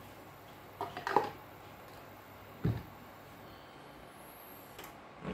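Brief kitchen clatter of a ladle and a frying pan as crêpe batter is poured in: a short cluster of sharp clacks about a second in and a dull thump near the middle, over a faint steady background.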